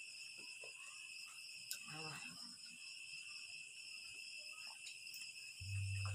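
Faint, steady high chirring of crickets, with a few small clicks; a low hum comes in near the end.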